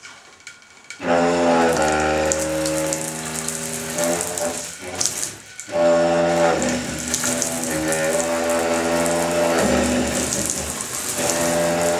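Faulty water plumbing droning with a loud, steady tuba-like tone over the hiss of running water. The drone starts about a second in, breaks off briefly around the middle, then comes back and shifts in pitch a few times. It is the sign of a plumbing fault bad enough to need a plumber.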